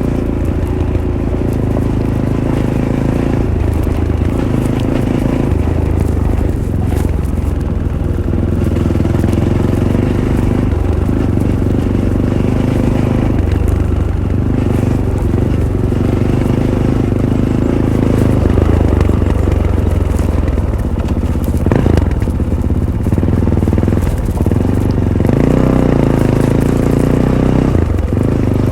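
Fantic Caballero 500's single-cylinder engine running under way through its stock Arrow exhaust, the note shifting as the throttle changes. A few short knocks, one sharp one about three quarters of the way in.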